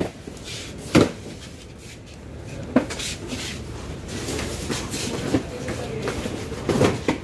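Cardboard cartons being handled and set down on a delivery truck's cargo floor: a few dull thuds, the sharpest about a second in and another near three seconds, with more near the end.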